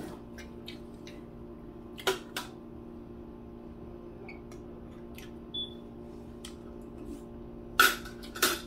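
Metal forks clicking and scraping against plates and foil food trays at a meal, with a pair of sharp clicks about two seconds in and a louder pair near the end, over a steady low hum.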